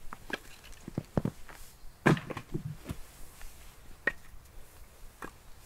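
Dry wood snapping and cracking in irregular sharp cracks, the loudest about two seconds in.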